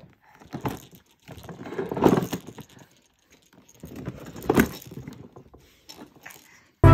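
Toys being handled, rattling and clattering in several short, irregular bursts. Near the end a bright keyboard-like tune starts abruptly.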